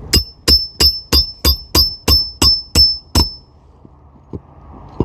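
Hammer striking a roof snake shingle-repair tool about ten times in quick succession, roughly three blows a second, each blow with a bright metallic ring. The blows drive a roofing nail under a lifted shingle through into the roof decking. They stop a little past halfway, and one faint knock follows.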